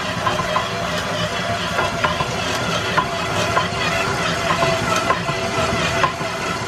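KitchenAid 8-quart commercial stand mixer running with its dough hook, kneading flour and water into dough: a steady motor hum with irregular short knocks.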